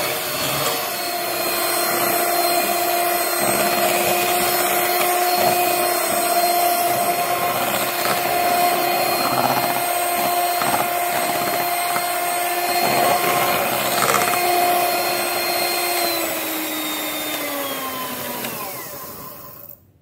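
Electric hand mixer running with a steady motor whine, its wire beaters whipping an egg-and-sugar sponge batter in a glass bowl until it is thick and pale. Near the end the whine falls in pitch as the motor slows, then cuts off: the batter has risen enough.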